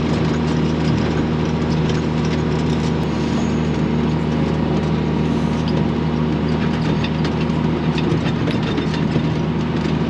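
John Deere tractor engine running steadily under load, heard from inside the cab: an even, constant hum with a few steady low tones and faint scattered clicks.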